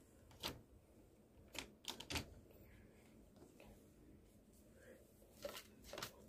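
Near-quiet room with a handful of faint, sharp clicks and taps: one about half a second in, three close together around two seconds in, and two more near the end.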